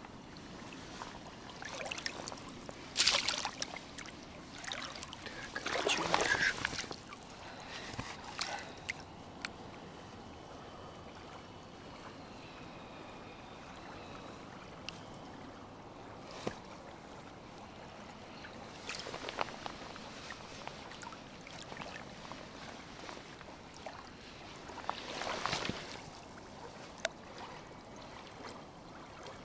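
Shallow lake water splashing as a hand releases small bream, which slip away from it. There are several short splashes, the loudest near the start and about 25 seconds in, over a steady gentle lapping at the shore.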